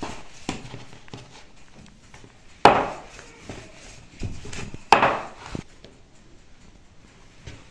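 Wooden rolling pin working dough on a wooden board: light taps and rolling, with two sharp wooden knocks about two seconds apart.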